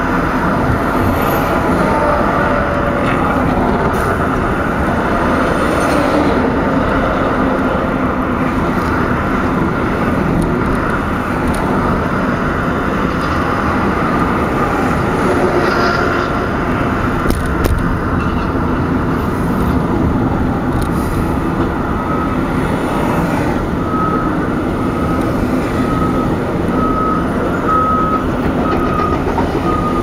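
Steady road and engine noise heard from inside a car driving at highway speed. From about two-thirds of the way in, a construction vehicle's reversing alarm beeps about once a second.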